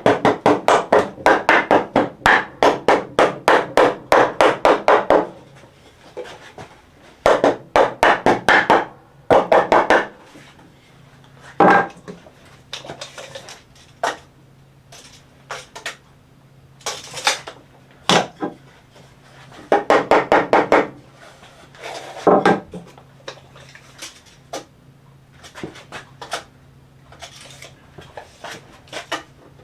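Hammer tapping on wooden boards in quick runs of about five or six taps a second, with pauses and a few single knocks between runs, as a board is knocked into position.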